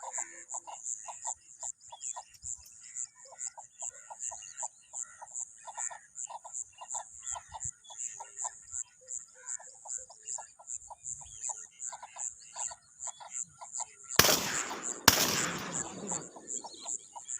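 Two shotgun shots about a second apart near the end, each trailing off in a long echo. They sound over a steady background of short, regular calls, three or four a second, and a high pulsing chirr.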